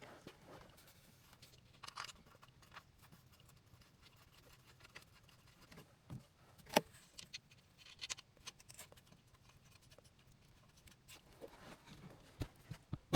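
Sporadic light clicks and taps of hand tools and metal parts being handled during reassembly after an oil change on a Honda Pioneer 1000 side-by-side, over a faint steady low hum.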